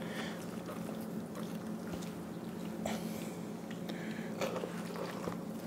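Knife cutting the leg off a whole smoked chicken on a wooden board: faint wet slicing through the crispy skin and joint, with a few soft clicks, over a faint steady hum.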